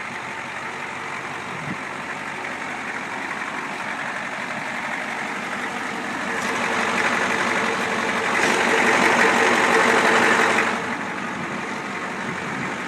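Ford 7.3L Powerstroke V8 turbo diesel idling steadily. It grows louder for a few seconds past the middle, then drops back suddenly, while its pitch stays the same.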